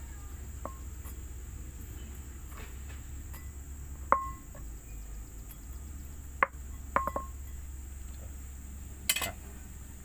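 A ceramic plate clinking about six times, short ringing knocks as chopped lemongrass and chillies are handled on it, the loudest about four seconds in and a pair near seven seconds. A steady high insect chirr runs underneath.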